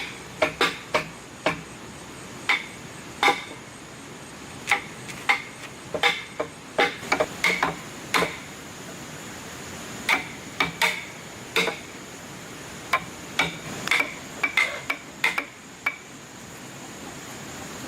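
Hand-hammering in timber construction: irregular sharp knocks with a short ring, several in quick succession, then a pause, then more. A faint steady high whine runs underneath.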